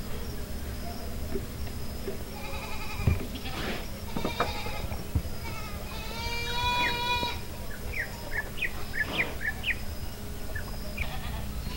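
Livestock bleating several times, with one long, strong bleat about six seconds in. A run of short rising bird chirps follows around eight to ten seconds in, over a steady low background noise.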